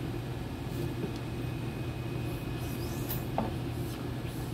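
A fleshing blade scraping fat and membrane off a muskrat pelt stretched on a wooden board, in a series of short uneven strokes, over a steady low hum.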